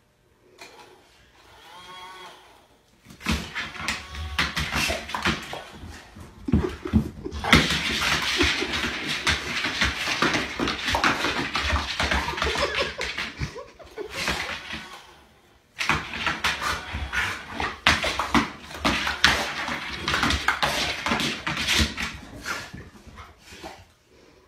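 A dog's claws tapping rapidly on a tile floor as she prances in place, a dense run of clicks in two long spells with a short break about two-thirds of the way through.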